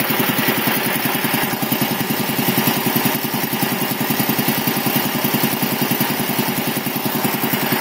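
Quincy QR-325 reciprocating air compressor pump running, belt-driven by a 5 HP single-phase electric motor and slowed to about 621 rpm, with a steady even beat of about ten strokes a second as it builds tank pressure.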